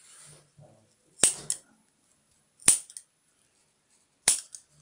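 Small surgical scissors snipping through a puppy's ear along an ear-cropping clamp: three sharp snips about a second and a half apart, the first followed quickly by a smaller click.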